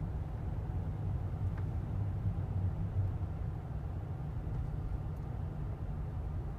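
Steady low rumble of a car's tyres on the road and its engine, heard from inside the cabin while driving at an even speed.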